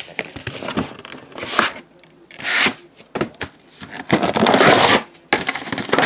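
Card-box packaging being handled: several bursts of crinkling and tearing, the longest about four seconds in, as a box of autographed photographs is unwrapped.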